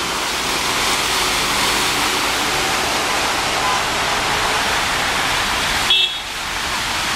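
Vehicles driving through floodwater on a road, their wheels throwing up a steady rush of spray and splashing. A short car horn toot sounds about six seconds in.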